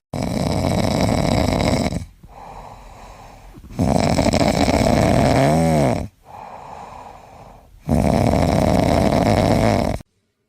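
A pet snoring loudly: three long, rasping snores, each about two seconds long, with quieter breaths between them. The sound cuts off abruptly near the end.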